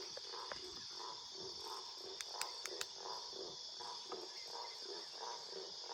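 Night insect chorus, a steady high-pitched shrilling of crickets, with a lower animal call pulsing about two or three times a second and a few sharp clicks a little over two seconds in.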